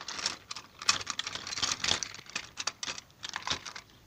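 Plastic Tomy toy train engines and track being handled by hand: a run of irregular clicks, taps and rattles of plastic.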